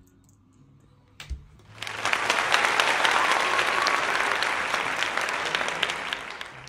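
Applause, with a soft knock just before it. The applause starts about two seconds in and fades away near the end.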